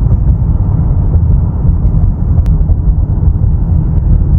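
Steady low rumble of a car driving, heard from inside the cabin, with a single brief click about two and a half seconds in.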